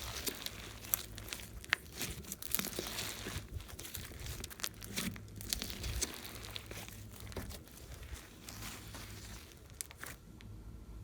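Slime being squeezed and worked by hand, giving many small, irregular crackles and pops.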